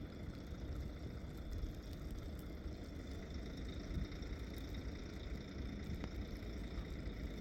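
Steady low rumble of an engine running, with faint steady high-pitched tones above it.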